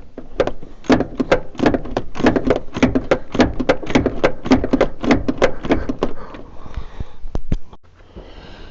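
A quick, irregular run of clicks and knocks from hand tools working on metal, stopping about a second before the end.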